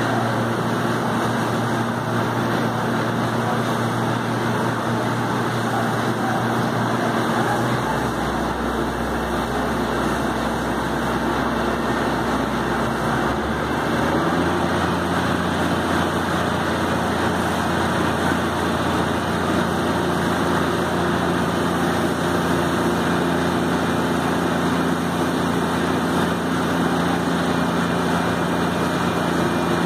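An engine running steadily, its speed dropping about eight seconds in and picking up again about six seconds later.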